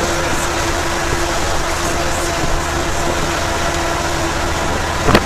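Steady engine and road noise of a moving vehicle, with a held hum through most of it and one sharp click near the end.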